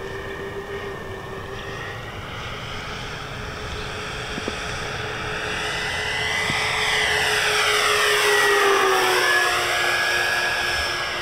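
The twin electric motors and propellers of a 63-inch Motion RC P-38 Lightning model plane whine steadily in flight. The sound grows louder as the plane comes in on a low pass, then drops in pitch as it goes by about nine seconds in.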